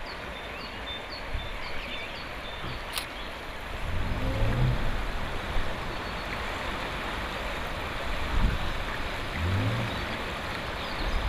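Small outboard motor of an inflatable rescue boat running on the river, under a steady rush of flowing water.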